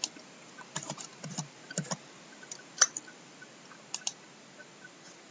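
Computer keyboard and mouse clicks: scattered single clicks and short runs of key presses, fading out about four seconds in.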